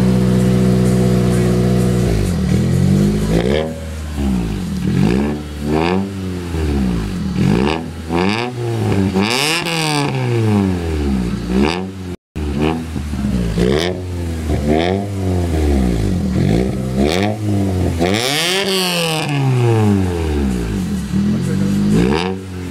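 1992 Honda Prelude Si's 2.3-litre four-cylinder engine idling steadily, then revved over and over from about two seconds in: a long series of quick revs, each rising and falling back, heard at the tailpipe.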